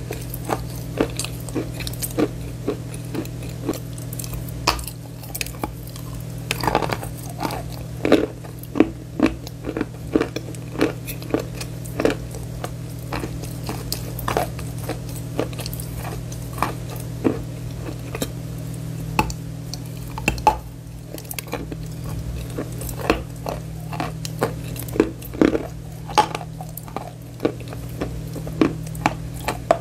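Close-miked chewing of a bite of chalk: dense, irregular crunches and crackles, several a second, over a steady low hum.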